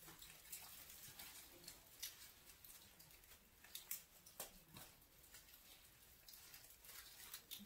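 Faint rustling and scattered small clicks of wreath greenery and ribbon as hands work a decoration into place, a few slightly louder clicks around the middle.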